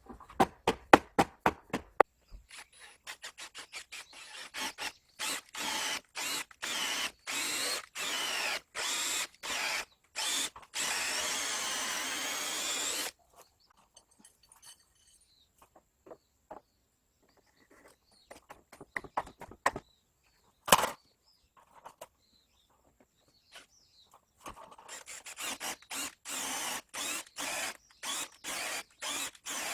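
A tool working wood in short repeated strokes, about two a second, with one longer unbroken run near the middle. A quieter stretch of scattered knocks follows, then the strokes start again near the end.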